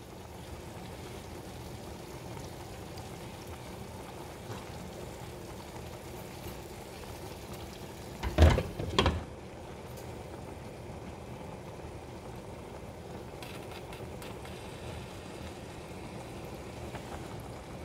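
Chicken in tomato-chilli sauce simmering in a stainless steel skillet, a steady bubbling. A little over eight seconds in, a glass lid is set down on the skillet with two knocks about half a second apart.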